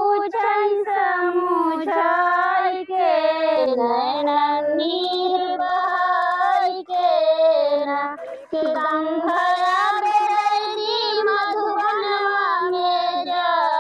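A high female voice singing a kajari, the rainy-season folk song of eastern Uttar Pradesh, unaccompanied, in long held notes that waver and glide, with short breaths between phrases.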